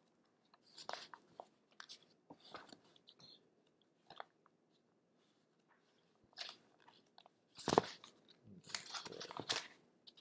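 Paper pages of a book being flipped and leafed through: scattered short rustles, the loudest a couple of seconds before the end.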